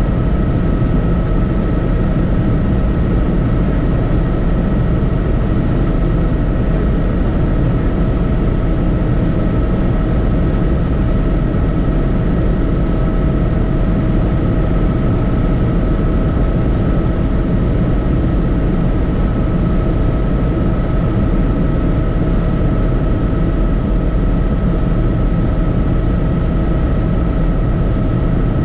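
Tour helicopter in flight, heard from on board: a loud, steady rumble of rotor and engine with constant high-pitched whining tones over it.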